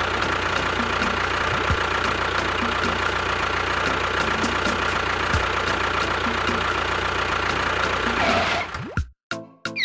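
An engine running steadily with a regular knock about twice a second, cutting off abruptly near the end, followed by a brief musical jingle.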